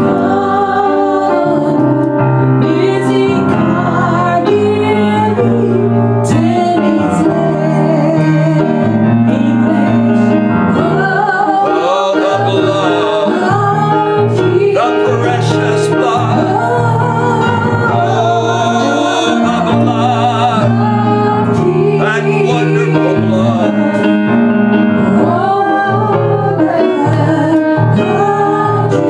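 A woman singing a gospel worship song into a microphone over steady instrumental accompaniment.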